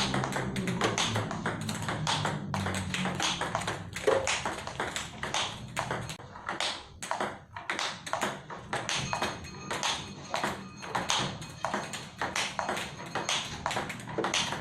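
Table tennis balls being fed and smashed in a multiball drill: a rapid, irregular series of sharp clicks as bats strike balls and balls bounce on the table.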